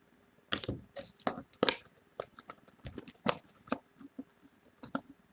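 Football trading cards being handled and slid against one another, a string of irregular short rustles and clicks.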